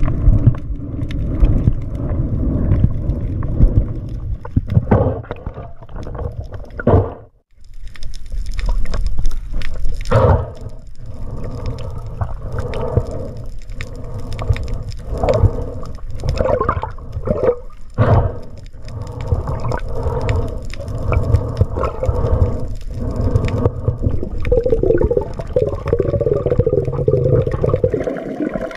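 Muffled underwater water noise picked up through a camera housing while swimming: a continuous low rush and gurgle of water with scattered knocks. It breaks off briefly about seven seconds in.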